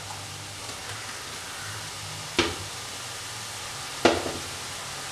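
Murukku deep-frying in hot oil, a steady sizzle. Two sharp metal clinks, about two and a half and four seconds in, come from the perforated steel skimmer knocking against the wok as more pieces go into the oil.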